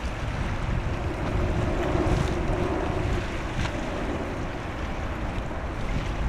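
Wind buffeting the microphone over a steady wash of sea water, with a faint low steady hum underneath.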